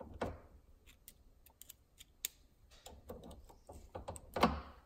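Irregular small metallic clicks and ticks of snap ring pliers and a steel snap ring being worked into the groove of a bronze raw water pump housing, the ring that holds the pump bearing in place. A louder clack sounds just after the start and again near the end.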